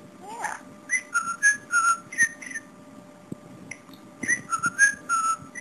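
Budgerigar whistling a short learned tune of quick, clear notes, then repeating the same phrase after a brief pause.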